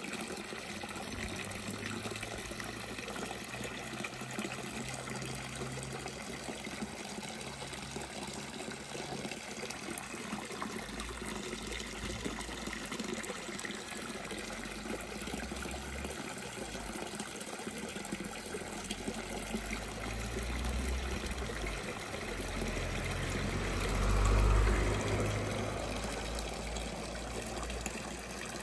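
Garden pond water feature: two bubbling fountain jets and a stream from a filter outlet pipe splashing into the pond, a steady trickling and splashing. A low rumble swells a few times in the second half, loudest near the end.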